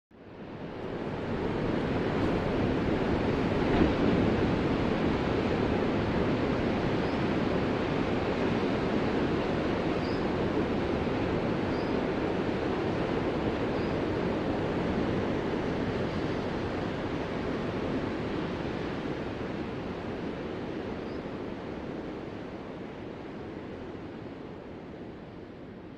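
Ocean surf: a steady rush of breaking waves that swells up out of silence in the first couple of seconds and slowly dies away toward the end.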